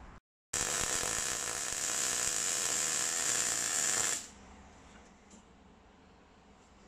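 MIG welder arc crackling steadily as a tack weld is laid on a tubular seat hoop. It starts about half a second in and cuts off after about three and a half seconds, when the trigger is released.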